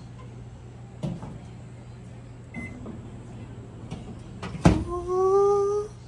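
ZLINE drawer microwave running with its replacement magnetron, a steady low hum. About three-quarters of the way through there is a sharp clack, followed by a man's drawn-out, slightly rising "ooh" lasting about a second.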